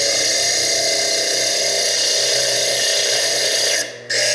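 Foredom bench lathe running with a small diamond slitting disc cutting into fire agate: a steady, high-pitched whine. It cuts out briefly about four seconds in, then comes straight back.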